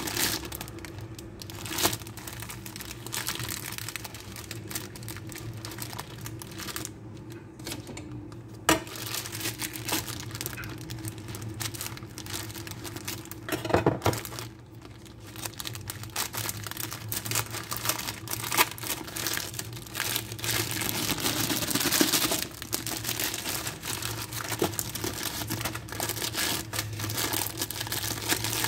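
Plastic snack multipack bag and small foil-wrapped chocolate bars crinkling and rustling in the hands as the bag is torn open and the bars are pulled out, with sharp crackles throughout, busiest about three quarters of the way through.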